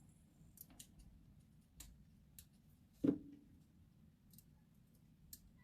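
Scattered light clicks and ticks of small tools and fingers working on the opened-up Canon PowerShot SX730 compact camera, with one louder knock about three seconds in.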